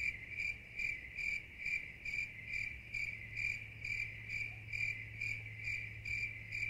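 Cricket chirping, a steady run of short, even chirps about two and a half a second over a low steady hum. It is the stock 'crickets' gag for an awkward silence.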